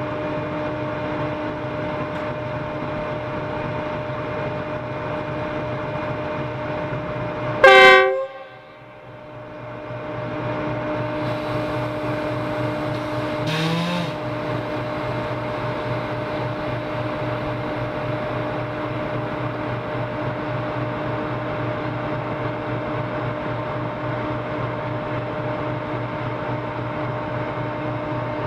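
Diesel-electric locomotive idling steadily with a constant engine hum, sounding one short, loud horn blast about eight seconds in; a brief, fainter sound follows some six seconds later.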